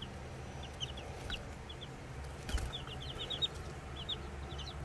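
Two-week-old chicks peeping: many short, high peeps in quick little runs. There are a couple of soft knocks about a second and two and a half seconds in.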